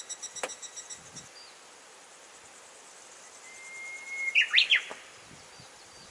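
A songbird sings once, about four seconds in: one long held whistle followed by a quick flourish of sharp rising and falling notes, the loudest sound here. Before it, a high, evenly pulsing trill stops about a second in.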